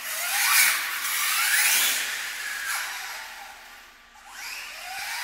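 Electric motor of a radio-controlled drift car whining as it accelerates, rising in pitch several times, with the tyres scrubbing and sliding on the smooth coated floor. It fades about four seconds in, then rises again.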